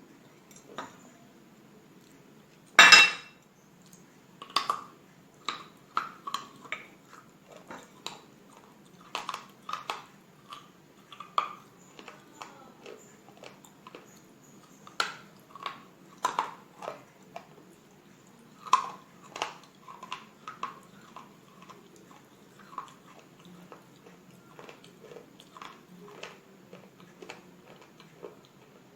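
A person biting off and chewing pieces of slate bar: one loud sharp snap about three seconds in, then a long run of brittle crunches and clicks as the pieces are chewed.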